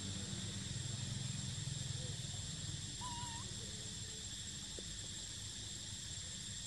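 Steady high-pitched insect drone over a low rumble, with one short wavering whistle-like call about three seconds in.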